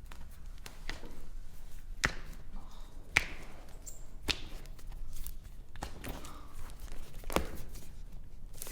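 Foot and toe joints cracking under a chiropractor's adjustment: several separate sharp pops, the loudest about three seconds in.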